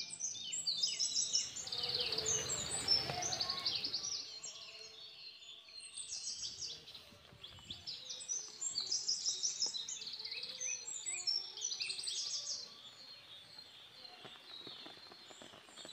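Songbirds chirping and singing throughout, with rapid high notes repeated in quick runs. A brief noisy rush covers them from about one and a half to four seconds in.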